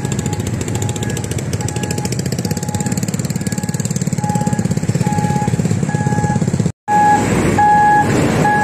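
Heavy diesel lorry engine running with a fast, even rumble, while a reversing alarm beeps steadily about once every 0.7 seconds. The sound cuts out for an instant near the end, and after that the beeps are louder.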